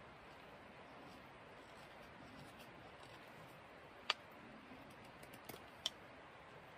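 Carbon-steel knife whittling a dried pear branch: faint scraping cuts with a few sharp clicks as the blade bites and snaps off shavings. The loudest click comes about four seconds in, and a few smaller ones follow near the end.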